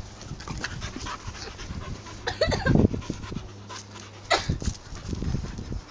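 A dog panting as it bounds and plays, with a few short sharp noises about two and a half and four and a half seconds in.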